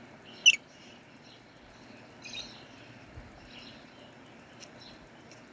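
Pet lovebirds chirping in short, sharp calls: one loud chirp about half a second in, a cluster of chirps just past two seconds, then a few fainter ones, over a steady background hiss.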